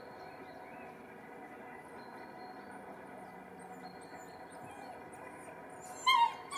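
Quiet steady background hiss, then about six seconds in a borzoi puppy gives a short high-pitched cry.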